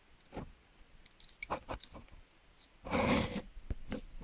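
Handling noise from a metal fountain pen turned in the fingers close to the microphone: a scatter of light clicks and taps, then a louder half-second of rubbing noise about three seconds in.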